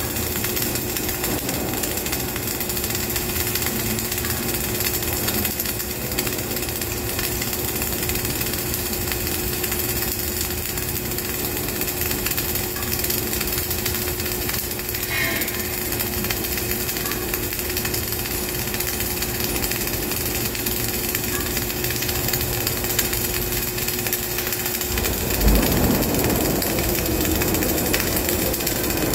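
Flux-cored arc welding: the arc sizzles steadily and without a break as a vertical butt-joint bead is run. Near the end a short, louder thump is heard and a steady hum under the arc drops out.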